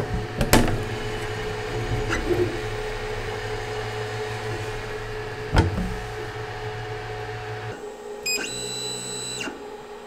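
Creality Sermoon D1 enclosed 3D printer running mid-print with its fans at full speed, a steady hum with steady tones. Its enclosure door is handled, with a sharp click about half a second in and a knock about five and a half seconds in. Near the end the low hum drops and a brief high whine lasts about a second.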